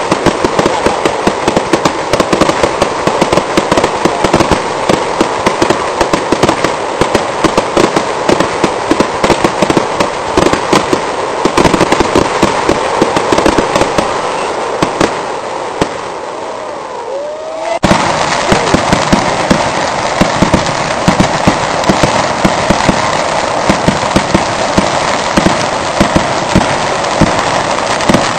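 Fireworks display: a dense, continuous barrage of bangs and crackling from exploding shells. About two-thirds of the way through it eases off briefly, with a short whistling glide, then abruptly comes back at full density.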